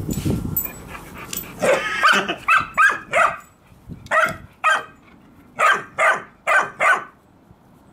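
A bulldog barking: about ten short, sharp barks, some coming in quick pairs, starting a couple of seconds in and stopping shortly before the end.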